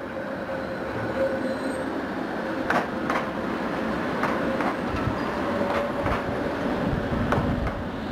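Articulated low-floor electric tram passing close by on street track, with a steady rumble and a faint held tone, and its wheels clacking sharply over rail joints several times, some in quick pairs.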